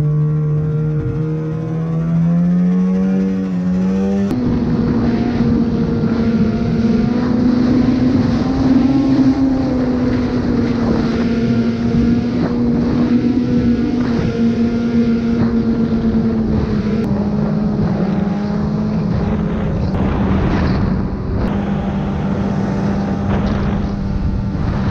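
Arctic Cat snowmobile engine running at speed under the rider. The engine note climbs over the first few seconds, changes abruptly about four seconds in, and then holds a steady, slightly higher note with small rises and falls.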